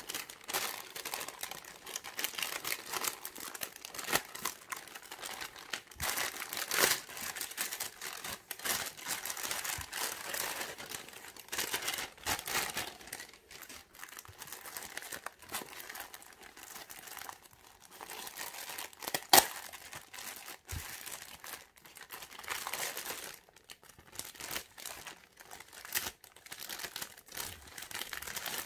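Plastic packaging being cut, torn and handled: a black plastic mailer bag slit open, then a clear plastic bag crinkling as it is turned over and opened. Irregular rustling and crackling with scattered clicks, and one sharp snap about two-thirds of the way through.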